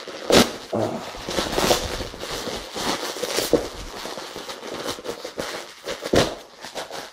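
Plastic courier mailer bag crinkling and being torn open by hand: an uneven crackling rustle with a few sharper rips and snaps, the bag tough to open.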